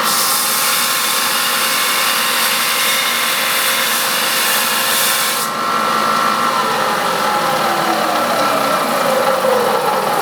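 A power tool running under load with a loud hiss that cuts off suddenly about halfway through; its whine then falls steadily in pitch as it slows.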